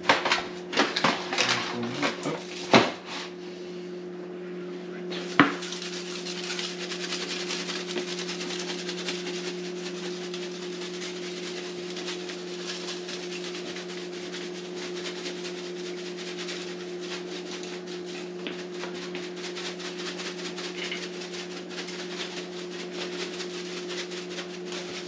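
Kitchen handling sounds: a few clicks and knocks in the first three seconds and a single sharp knock about five seconds in. After that comes a steady hiss over a low hum.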